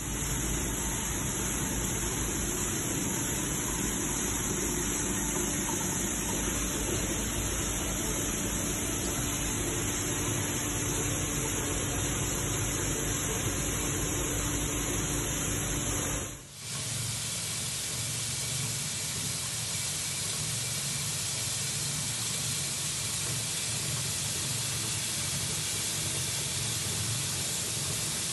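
Grain running through an Arska seed cleaner on a grain dryer, heard as a steady rushing hiss as it pours through the sieve and out of the outlet. A steady machine hum runs under it in the first part. About 16 seconds in there is a brief break, and the rushing goes on much the same.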